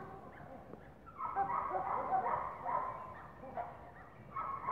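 A dog whining and yipping in short, repeated high calls, several a second, while playing.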